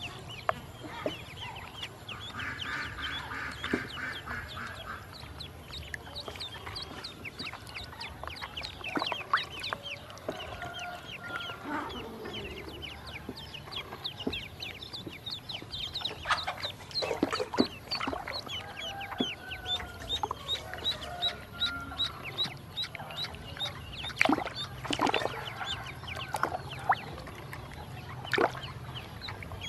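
Ducklings peeping: a near-constant run of short, high peeps, with a few lower calls and a few sharp clicks.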